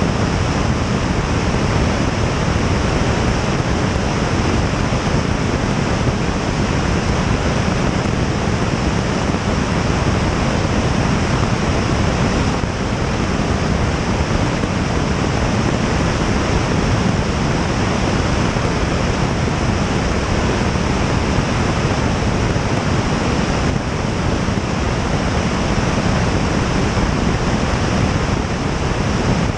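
Loud, steady rush of airflow buffeting a camera mounted outside on the tail of a Piper Tomahawk light aircraft in flight.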